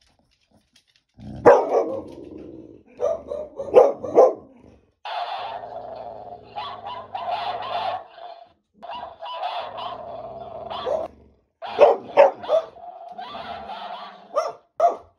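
Staffy-mix dog barking repeatedly at a toy Dancing Cactus, starting about a second in. Between the bark clusters come longer, steadier stretches of sound, likely the electronic cactus playing back what it hears.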